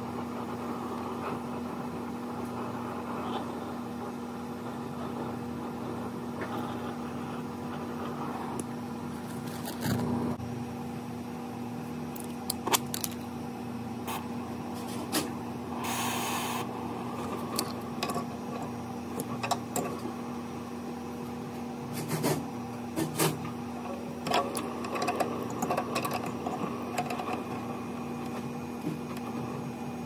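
Gas brazing torch flame hissing steadily as it heats the refrigerant line joints at a refrigerator compressor, over a steady low hum. Scattered light clicks and taps run through it, and a brief louder hiss comes about 16 seconds in.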